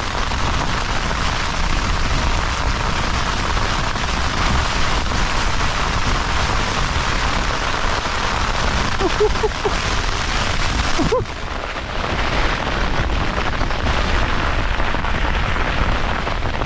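Heavy rain pounding on a tent's fabric, heard from inside, with strong wind gusting against it.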